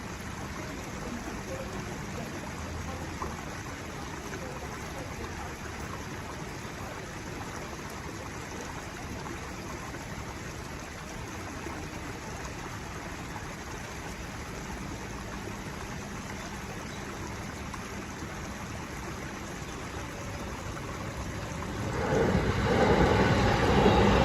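A steady outdoor background hiss, then, about 22 s in, a JR Nambu Line electric commuter train approaches the crossing and quickly grows loud.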